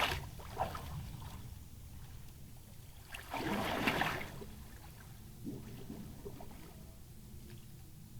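Water splashing as a person swims, with a louder splash about three seconds in and smaller ones around it.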